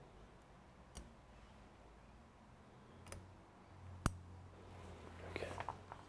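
Small hand tools and the laptop board being handled: a few isolated sharp clicks, the loudest about four seconds in, then a short run of rattling clicks near the end.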